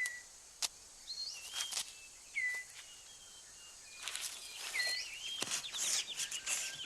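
Rainforest birds: several short whistled calls that swoop down in pitch, with a fast rattling trill coming in after about five seconds. Sharp snaps and ticks sound between the calls.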